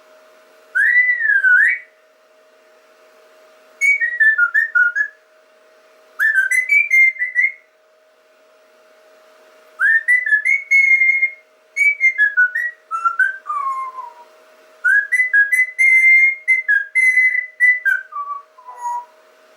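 Whistling in short warbling phrases: about six bursts of rising and falling notes, separated by pauses, with a faint steady hum underneath.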